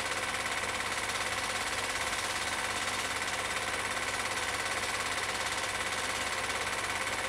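Cine film projector running, its intermittent film-advance mechanism giving a rapid, even, steady clatter over a hiss.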